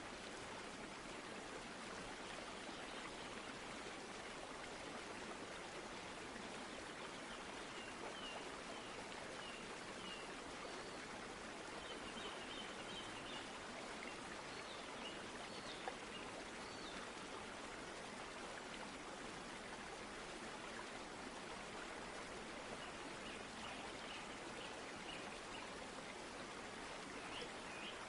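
A steady rush of flowing water, like a stream, with faint high bird chirps every few seconds.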